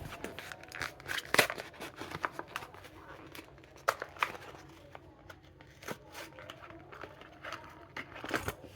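A Hot Wheels car's blister pack being torn open by hand, with irregular cardboard tearing and plastic crinkling and crackling.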